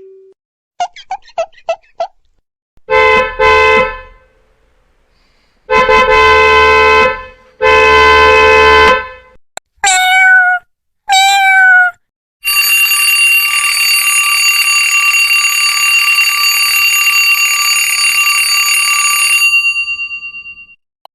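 A string of separate sound effects: a few quick beeps, two short buzzer blasts, two longer horn-like blasts, two swooping tones, then one long ringing tone that holds steady for about eight seconds.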